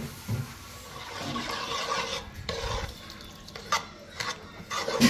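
Metal spoon stirring a thick, grainy mixture in an aluminium pot, a soft scraping and sloshing with a few sharper clinks in the second half.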